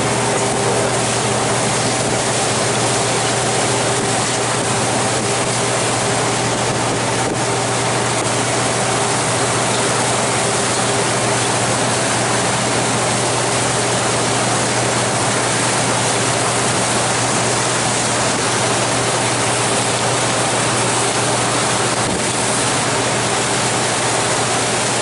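Steady rushing of wind and water past a moving glacier cruise boat, with a low, even engine hum underneath.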